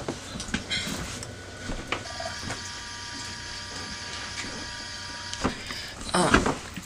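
Knocks and rustles of a camera or phone being handled, with a steady whirring hum of several held pitches from about two seconds in until shortly before the end.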